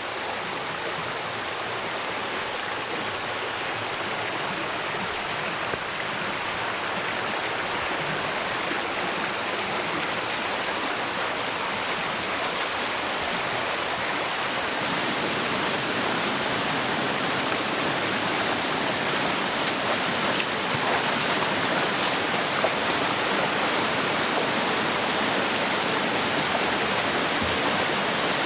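Waterfall on a mountain creek, a steady rush of falling and running water that grows slowly louder and turns a little brighter about halfway through.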